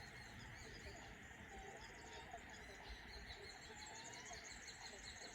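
Faint chorus of small birds chirping and calling, many short high chirps overlapping, with a few brief whistled glides.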